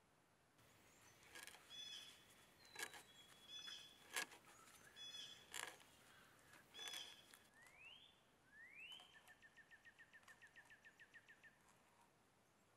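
Blue jay calling: a series of short, separate calls over several seconds. Near the end a second bird call follows: two quick rising whistles, then a fast, even trill of about eight notes a second.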